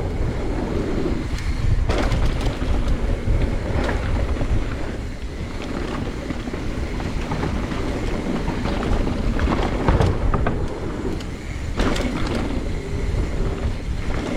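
Downhill mountain bike running over a rough trail: wind rushing on the microphone, with frequent knocks and rattles from the bike over rocks and roots.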